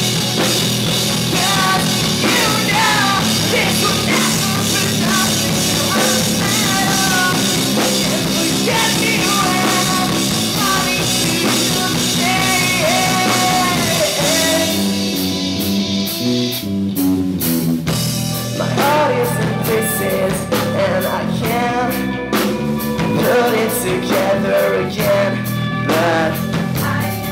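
Rock band playing live, an instrumental opening: a lead melody with sliding, bending notes over guitar, bass and drums. About fifteen seconds in the full sound drops away to a sparser passage of stepping low notes, then the lead melody comes back in.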